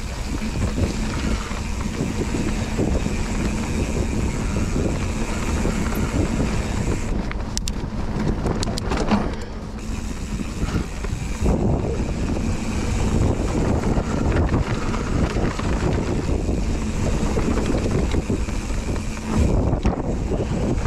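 Mountain bike riding down a dirt forest trail: steady tyre noise on the dirt and wind buffeting the microphone, with a run of sharp clicks and rattles from the bike around the middle.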